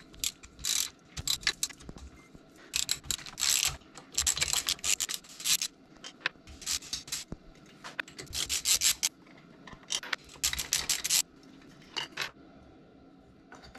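Socket ratchet clicking as 10 mm bolts are turned out of an outboard water pump housing cover, in short runs of rapid clicks with brief pauses between.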